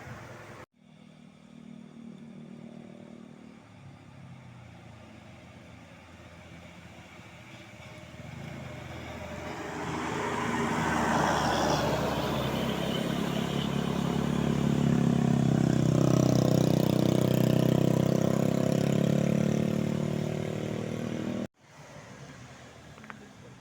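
Tour bus driving past on an uphill road. Its engine noise builds, with a rush of road noise as it comes close, then a steady low engine drone at its loudest, which cuts off suddenly near the end.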